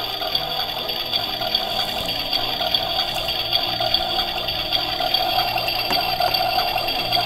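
Electronic toy oven playing its cooking sound effect through its small speaker after the chicken button is pressed: a steady crackling noise over a constant electronic tone.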